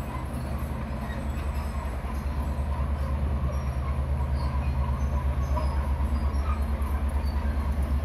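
Komatsu D31P bulldozer's diesel engine running under load with a steady low throb as the blade pushes a pile of dirt and rock. It grows louder over the first couple of seconds, then holds.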